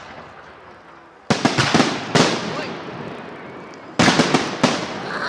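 Fireworks salute shells bursting: a cluster of sharp bangs with crackle about a second in, another just after two seconds, and another pair about four seconds in, each fading out in a long echo.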